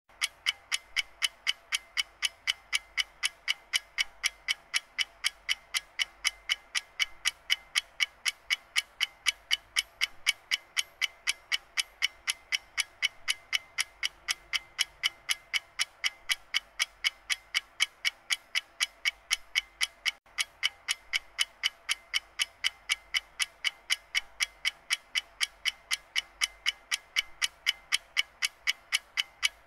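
Alarm clock ticking steadily and quickly, an even run of sharp ticks at about four a second.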